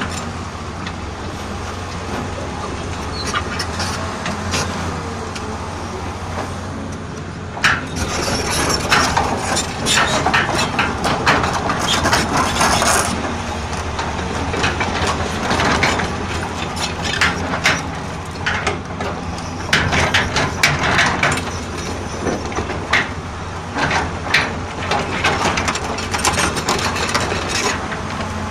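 Caterpillar excavator's diesel engine running steadily, with a busy run of metallic clanks, knocks and scraping starting about eight seconds in as the machine is worked.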